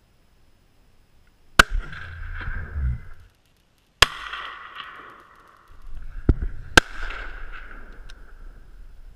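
Three shots from a .338 Lapua Magnum Remington 700 bolt-action rifle: the first about a second and a half in, the second at about four seconds, the third near seven seconds. Each crack is followed by an echo that fades over about a second. A smaller sharp click comes just before the third shot.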